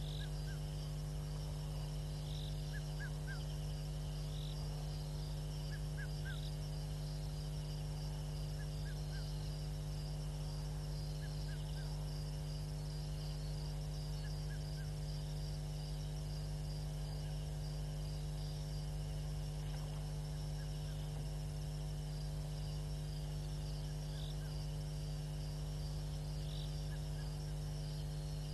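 Night insect chorus: crickets trilling steadily, with a short higher call repeating about every two seconds and brief chirps in twos and threes, over a steady low hum.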